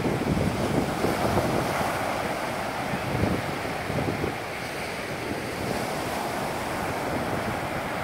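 Small waves breaking close to shore and washing up a sandy beach: a steady rush of surf, a little louder in the first few seconds and then easing.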